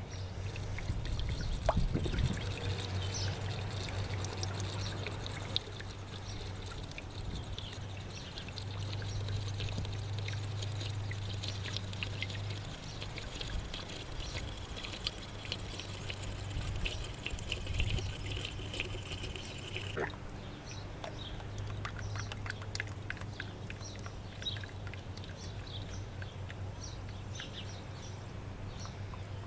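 New motor oil pouring steadily from a plastic jug through a funnel into a car engine's oil filler.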